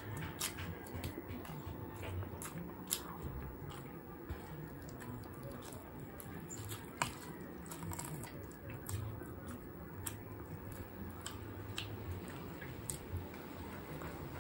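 Close-up mukbang eating sounds: a person chewing roast chicken with open-mouthed smacking and many short, sharp wet mouth clicks scattered throughout.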